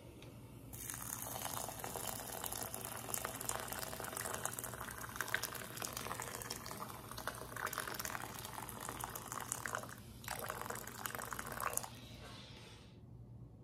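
Boiling water pouring in a stream into a glass bowl of long-grain rice, splashing and fizzing as the bowl fills. The pour starts about a second in, breaks off briefly near the end, resumes for under two seconds and then stops.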